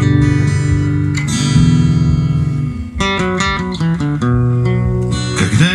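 Acoustic guitar music, with notes plucked and strummed and the chord changing every second or so.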